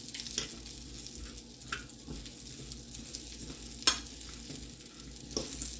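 Tater rounds sizzling steadily in oil in a skillet. A few clicks of a fork prodding them against the pan break through, the sharpest about four seconds in.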